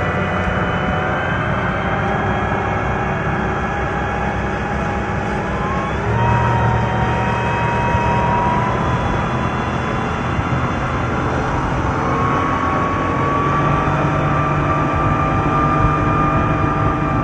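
A boat's engine running steadily: a loud, continuous drone with held tones above it that shift slightly in pitch about six and twelve seconds in.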